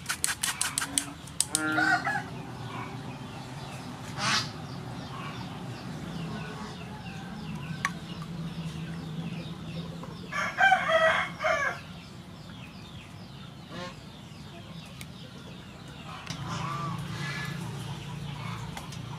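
A rooster crows loudly once about ten seconds in, with chickens clucking faintly at other moments. At the start a metal spoon scrapes rapidly against a wire-mesh sieve.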